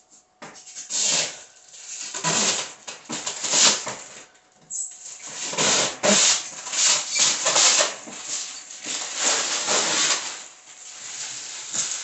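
Irregular bursts of rustling and scraping from packing material being pulled off and handled on a new refrigerator.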